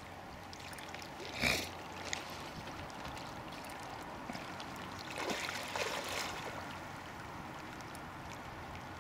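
A small hooked common carp splashing and swirling at the lake surface as it is played in on the line: a short sharp splash about one and a half seconds in, and a longer bout of splashing a little after halfway, over a low steady lapping of water.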